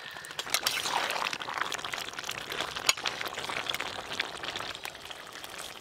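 A metal ladle stirring thick, steaming jackfruit curry in a metal pan: wet bubbling and squelching, with frequent sharp clinks of the ladle against the pan. The loudest clink comes about three seconds in.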